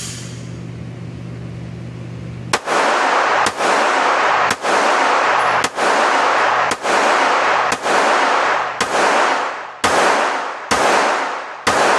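A 1911 pistol firing a slow string of about ten shots, roughly one a second, starting between two and three seconds in. Each shot rings out in the echo of an indoor range. A steady low hum comes before the first shot.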